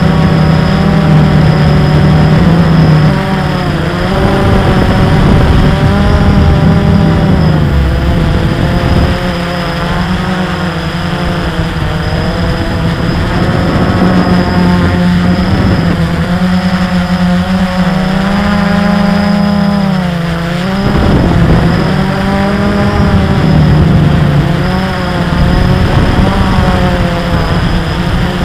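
Motor and propeller of a flying model aircraft, recorded onboard. It runs loudly, with its pitch wavering up and down as the motor speed changes, and dips sharply about two-thirds of the way through.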